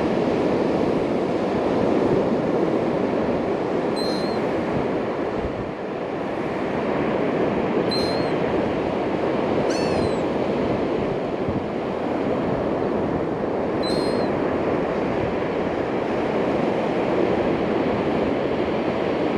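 Steady rush of surf and wind on the beach, with a bird giving a few short high chirps every few seconds.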